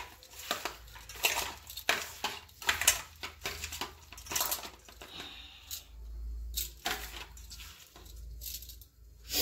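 Raw prawns being rubbed with salt and turmeric by hand in a steel bowl. Bangles on the wrist clink against the bowl, giving rapid, irregular clatter that thins out in the second half.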